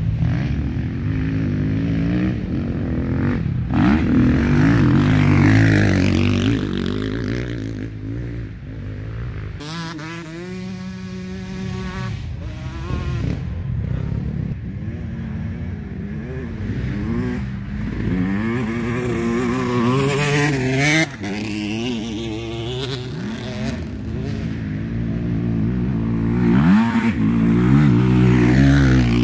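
Dirt bike engines revving up and down as the bikes ride the track, the pitch climbing and dropping with each gear change. Several engines overlap, and the sound swells loudest a few seconds in and again near the end as bikes pass close.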